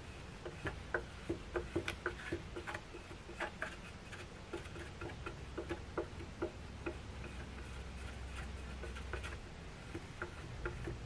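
Small plastic squeegee working wet protective film onto a plastic fog light lens: irregular light clicks and ticks, a few a second, over a low steady hum.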